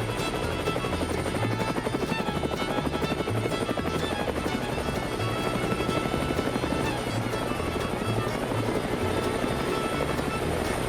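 Helicopter rotor chopping steadily and rapidly, running throughout.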